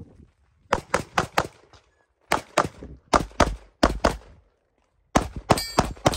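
Staccato P pistol fired in rapid strings, shots coming in quick pairs and short bursts with brief pauses between positions, about fifteen in all. A short metallic ring sounds near the end.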